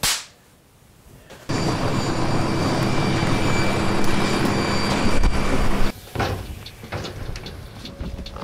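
Jet airliner cabin noise: a loud, steady rush with a few constant hums and whines, starting about a second and a half in and cutting off suddenly about six seconds in. A short sharp hit comes at the very start, and quieter scattered clicks and knocks follow the cabin noise.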